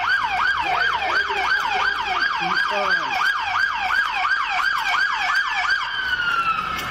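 Police car siren on a fast yelp, about three rising-and-falling sweeps a second. Near the end it stops cycling and winds down in one long falling tone.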